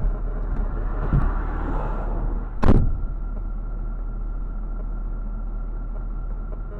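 Steady engine and road rumble of a car driving on a snowy road, heard from inside the cabin. A few light knocks come about a second in, and one short, sharp thump, the loudest sound, about two and a half seconds in.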